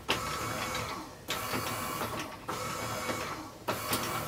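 Gentle Roller wet felting machine running, its electric motor turning the foam rollers with a steady mechanical hum that dips briefly about every second and a bit.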